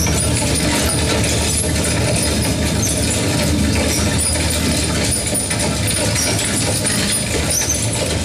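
Stagecoach sound effect played over the hall's speakers: a loud, steady rumbling.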